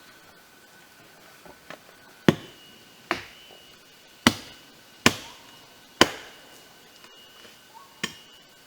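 Axe chopping into a rotten tree trunk: six sharp strikes about a second apart, beginning about two seconds in.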